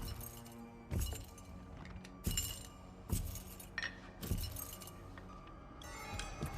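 Glass and metal clinking in a kitchen, about six sharp clinks and knocks as jars and utensils are handled, over a quiet, steady music score.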